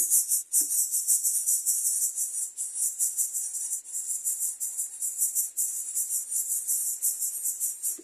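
Steady high-pitched insect trilling, a dense fast-pulsing buzz.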